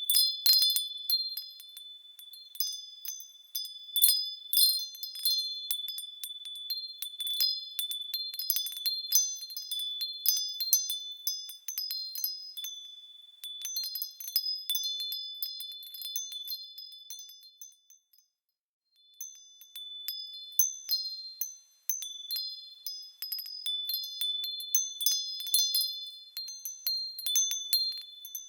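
Wind chimes tinkling: a few high-pitched tones struck again and again at irregular moments, each ringing on. About two-thirds of the way through they die away to silence for about a second, then start again.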